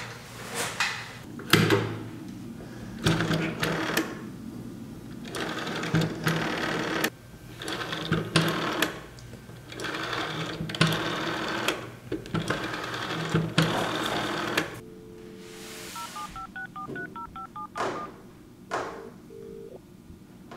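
Rotary dial of an antique cradle telephone being wound round and whirring back with clicks, about seven digits in turn. In the last few seconds, electronic telephone tones: a steady tone, then a quick run of short beeps.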